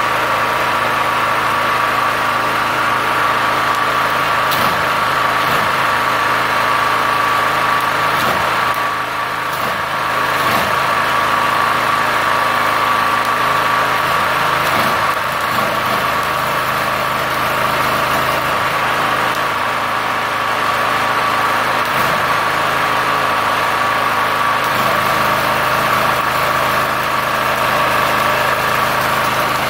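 Multipro GG-3900/4 SW gasoline generator running steadily, with its note shifting slightly about 25 seconds in.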